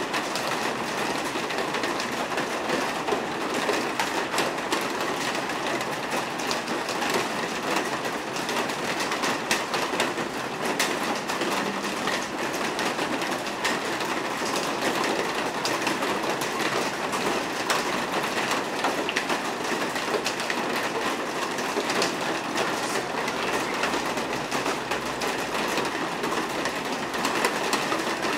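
Steady rain hiss with many pattering drops, with a Class 66 diesel locomotive (two-stroke V12) approaching in the distance on the running line.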